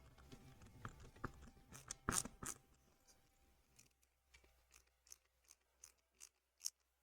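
Faint small-parts handling, then a series of short sharp clicks, about two or three a second, as a small hand screwdriver drives tiny screws into a die-cast metal model part.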